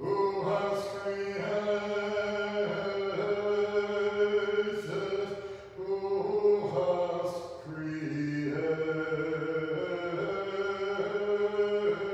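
Unaccompanied Orthodox vespers chanting: a few voices singing a slow hymn, with a lower part holding steady notes beneath a moving higher melody. There are short breaths between phrases about six and eight seconds in.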